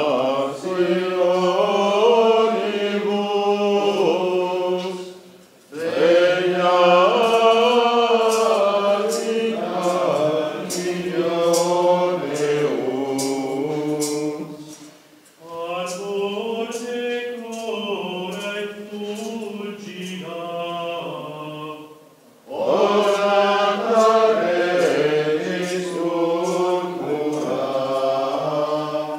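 Male voices of Franciscan friars singing a Latin hymn together in plainchant, in four long phrases with short breath pauses about 5, 15 and 22 seconds in.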